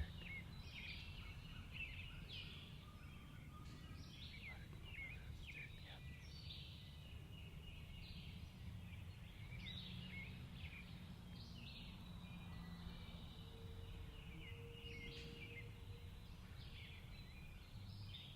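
Songbirds chirping faintly, many short overlapping calls, over a low steady rumble.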